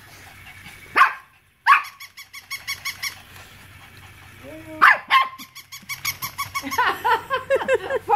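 Short, sharp dog barks, three separate ones and then a quicker run of yaps near the end. Alongside them is the rapid, even mechanical ticking of a battery-powered toy dog's walking mechanism.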